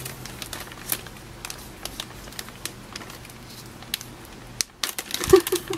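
Fingers working at the stiff zip seal of a resealable plastic bag: faint scattered clicks and crinkles of the plastic, with a louder rustle about five seconds in.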